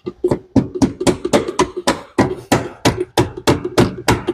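A big hammer striking repeatedly in a fast, even run of about five blows a second, each with a short ring, tapping a part into its mounting hole.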